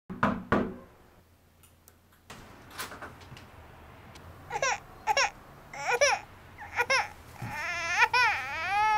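Two knocks on a door, then an infant crying: short wailing cries, each rising and falling in pitch, that come closer together and grow louder near the end.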